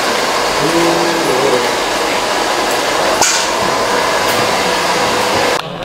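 A steady, loud rushing noise with faint voices beneath it, cutting off suddenly shortly before the end.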